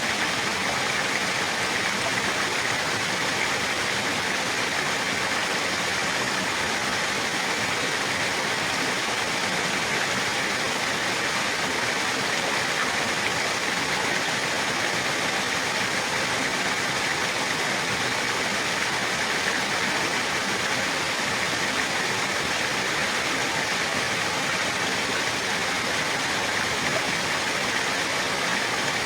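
Running water: a steady, even rush like a stream or small waterfall, unchanging throughout.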